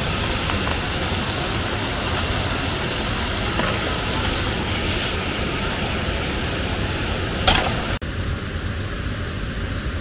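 Waterfall up close: a loud, steady rush of falling water. About seven and a half seconds in there is a short sharp knock, and just after it the sound drops to a quieter, duller rush.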